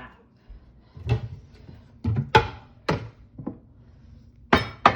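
Clean dishes clattering as they are handled and put away, with a run of sharp clinks and knocks that ring briefly. The loudest clatter comes near the end.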